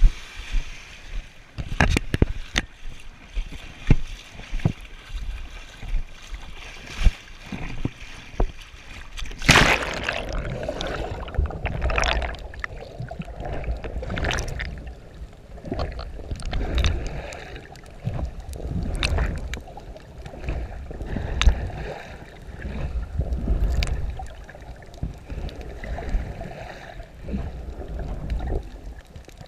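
Shallow seawater lapping and splashing against an action camera at the water's edge, with sharp clicks. About nine and a half seconds in, a big splash as it goes under, then muffled underwater sloshing and gurgling with low rumble to the end.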